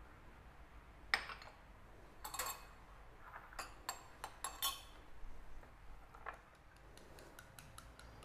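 Kitchen knife slicing through cooked pork and knocking on a wooden cutting board: a handful of sharp separate knocks over the first five seconds, one more a little later, then fainter quick ticks near the end.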